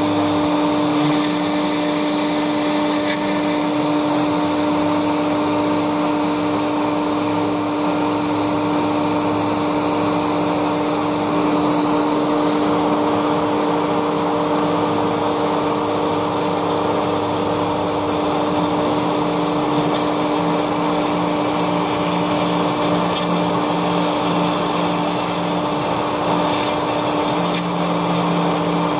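Laguna SmartShop II CNC router's spindle running steadily with a high whine as its bit cuts through foam, with a steady hiss underneath.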